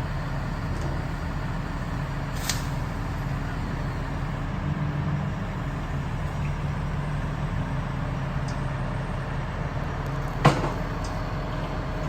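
Heavy engine running steadily with a low hum while the machinery lifts a heavy tree. There is a short hiss about two seconds in and a single sharp knock near the end.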